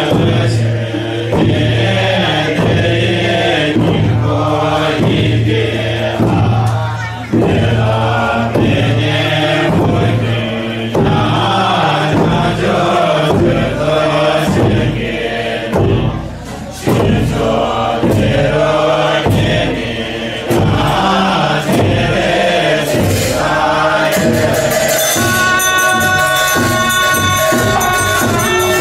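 Male voices chanting Buddhist liturgy in unison over a steady low drone, in a regular pulsing rhythm, as recited at a Tamang Gewa death rite. Near the end, steady ringing tones join in.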